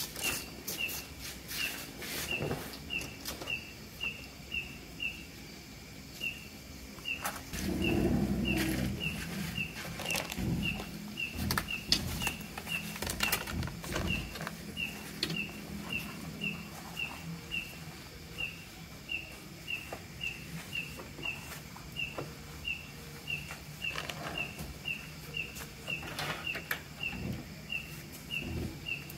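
Night-time chirping: one short high chirp repeating evenly about one and a half times a second, over scattered clicks and a brief low rumble about eight seconds in.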